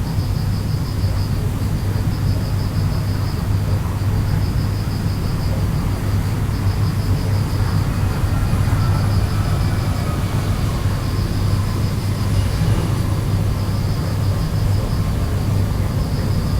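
Steady low hum with background noise. Over it, a rapid high-pitched pulsing recurs in bursts of about a second, with short gaps between them.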